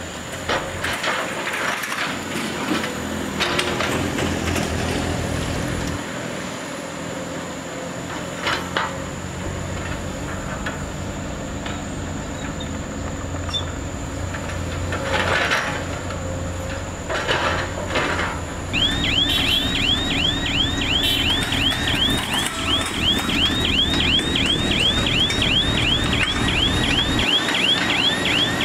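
Komatsu PC210 hydraulic excavator's diesel engine running under load, with a few sharp knocks from the bucket working soil and rock. About two-thirds of the way in, a vehicle's electronic warning alarm starts, a fast string of rising chirps about three or four a second, over heavier truck engine noise.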